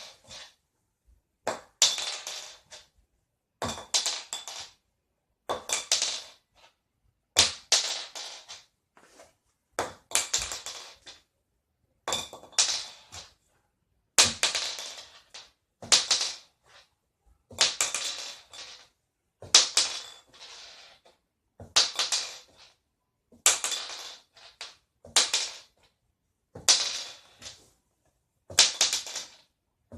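A .410 shotgun shell flipped and landing over and over, each landing a quick clatter of two or three knocks as it hits and bounces, about every two seconds.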